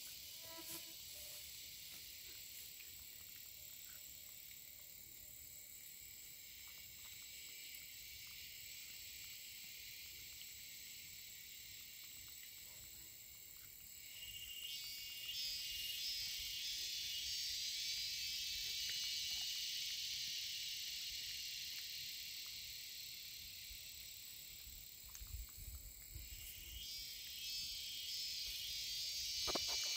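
Faint chorus of insects: a steady high-pitched hiss that swells louder about halfway through and eases off near the end.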